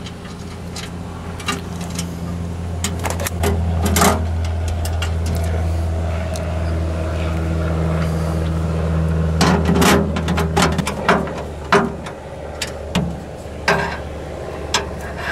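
Scattered metallic clicks and knocks from hand-fitting the heater bracket and a nylon lock nut onto its mounting studs inside the air machine cabinet, more of them in the second half, over a steady low engine-like hum.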